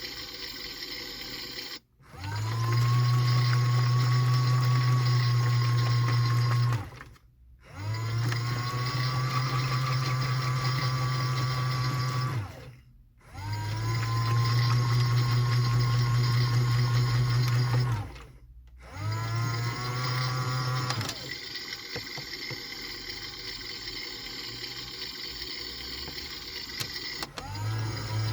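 Washing machine drum motor turning in runs of about five seconds with brief stops between them. Each run starts with a quick rising whine that levels off over a steady low hum. From about three quarters of the way through, a quieter steady running takes over until the motor starts again just before the end.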